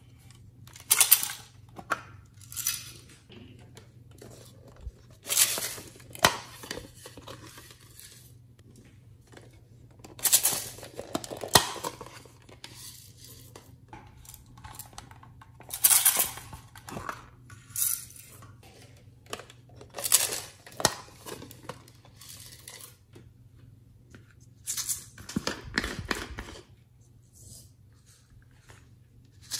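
Sequins and confetti rattling in a plastic container as it is shaken and tipped out onto slime. The rattles come in short bursts every few seconds, with a faint steady hum underneath.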